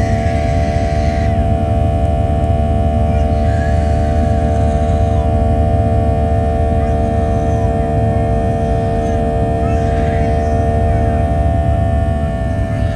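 Boeing 737-800's CFM56-7B engines at climb thrust, heard inside the cabin: a loud steady rumble with several steady droning tones over it. One of the tones fades out about eleven seconds in, and the level dips slightly near the end.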